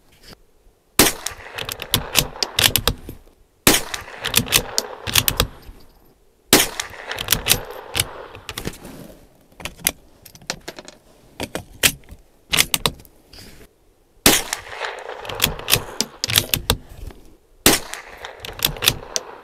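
Five sharp gunshots at a shooting range, three about three seconds apart, then a pause, then two more. Each crack is followed by a couple of seconds of echo and clicks.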